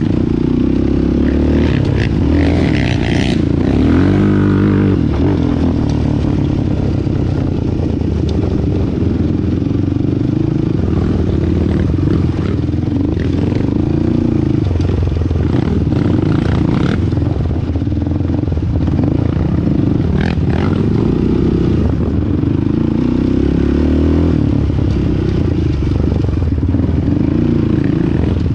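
Single-cylinder sport quad engine running on a trail ride, its revs rising and falling with the throttle. Now and then the machine rattles and clatters over rough ground.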